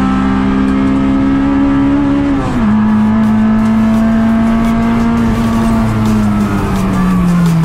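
The 1.9-litre TODA-built four-cylinder of a DC2 Integra Type R, heard from inside the cabin, runs high in its rev range. It upshifts about two and a half seconds in and pulls again, and the revs fall away over the last two seconds as the car slows.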